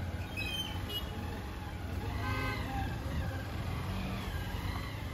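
Steady low rumble of road traffic, with a vehicle horn sounding briefly a little over two seconds in.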